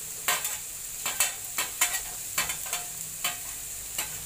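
Slotted metal spatula scraping and stirring in a metal pan, about two strokes a second, over a steady sizzle of onion, green chilli and freshly added grated carrot frying in oil.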